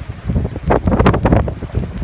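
Strong wind buffeting the microphone in irregular gusts, over the sound of Caspian Sea waves.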